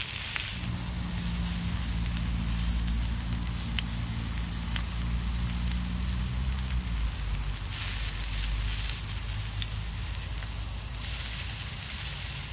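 Steak sizzling in a small pan on a canister gas stove, a steady hiss of frying over the burner's flame, with the odd faint pop. A low steady hum runs underneath and stops about seven seconds in.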